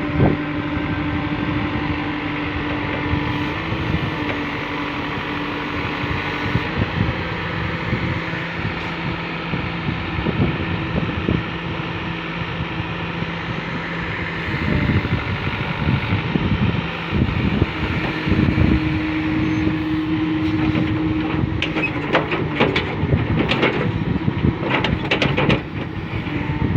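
Bobcat B900 backhoe loader's 76 hp diesel engine running under load with a steady drone while the machine works, with a series of sharp knocks over the last few seconds.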